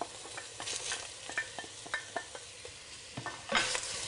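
Sliced onions and garlic tipped into hot oil in a stainless steel pot, frying with a steady sizzle, while a wooden spoon scrapes and knocks against a ceramic dish several times; a louder rush of sizzle and scraping comes about three and a half seconds in as they are stirred in.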